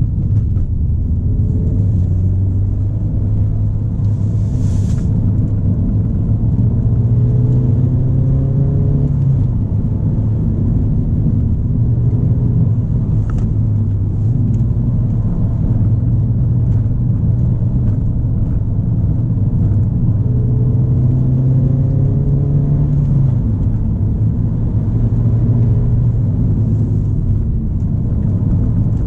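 Ford Fiesta ST's turbocharged engine pulling through the gears under road and tyre rumble. Its pitch climbs steadily, then drops suddenly at an upshift about 9 seconds in and again about 23 seconds in.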